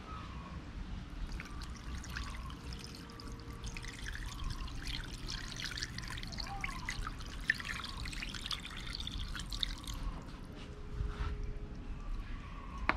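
Salt-water brine poured from a glass bowl into an aluminium foil pan of raw fish strips, trickling and splashing from about a second in until about ten seconds.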